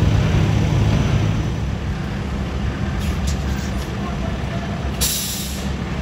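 Diesel engines of heavy construction machinery running steadily as a low rumble. About five seconds in comes a short, sharp hiss of air from a truck's air brakes.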